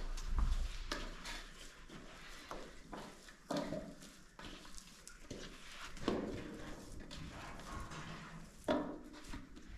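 Hands kneading bread dough in a wide metal basin: soft pressing and squelching with irregular knocks of the pan, the loudest about three and a half seconds in and near the end.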